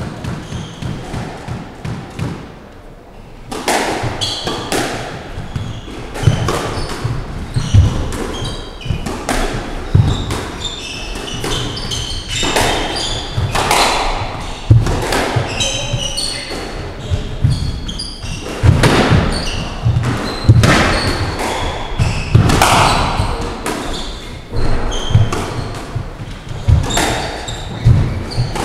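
Squash rally: the ball cracking off rackets and the court walls again and again in an irregular rhythm, starting about three and a half seconds in, with shoes squeaking on the wooden floor, all echoing in the enclosed court.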